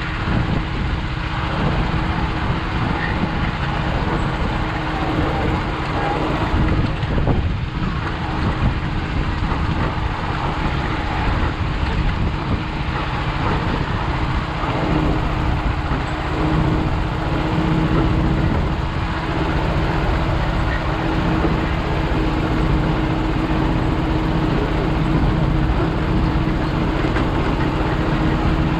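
A motor engine running steadily with a constant hum, no change in speed.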